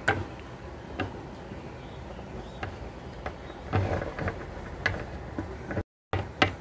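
A few light taps and knocks of a plastic Littlest Pet Shop figurine set down and moved by hand on a wooden tabletop, over faint room noise. The sound cuts out briefly near the end.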